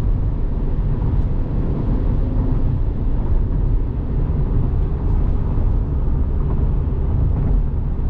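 Steady road and tyre noise heard inside the cabin of a Tesla Model 3 driving at speed.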